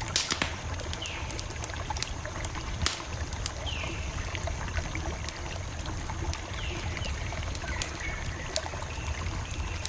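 Campfire burning, wood crackling with frequent sharp pops and snaps over a low steady rumble of the flames. A few short, high, falling chirps sound now and then.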